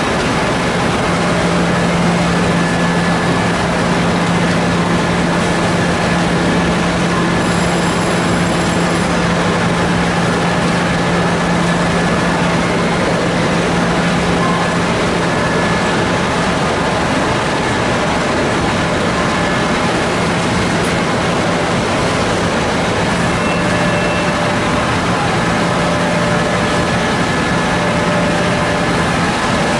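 Servo-driven slitter scorer for corrugated board running, a steady machine hum over dense, even mechanical noise; the hum is strongest in the first half and eases off about halfway through.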